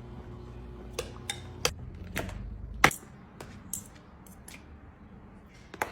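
Kitchen clatter: a string of sharp clicks and knocks from utensils and dishes being handled, spaced irregularly, the loudest about three seconds in. Under them a steady low hum runs and cuts off at that loudest knock.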